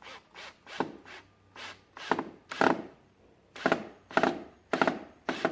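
A stainless steel screw being turned into wood in a series of short twisting strokes, about two a second, each a brief scraping creak.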